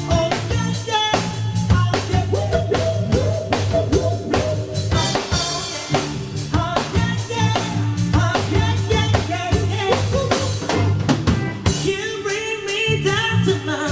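Dance music with a steady drum-kit beat and a singer over it.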